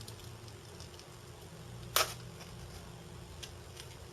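Quiet handling of small rocket parts: a paper centering ring and cardboard motor tube being worked with light ticks and rustle, and one sharp click about two seconds in.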